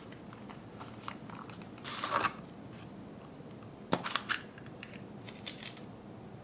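A short crinkly rustle of packaging about two seconds in. Then a quick cluster of sharp plastic clicks as a small green plastic toy capsule is pressed and snapped open with the thumbs.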